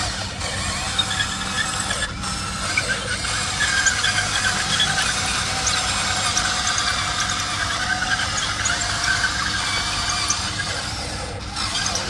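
Huina RC excavator's electric motors and gear drives running, a steady high-pitched whine and squeal with faint clicking.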